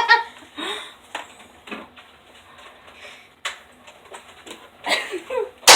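Scattered light clicks and knocks from toy foam-dart blasters being handled, with brief low vocal sounds from a child. Near the end comes one sharp loud snap.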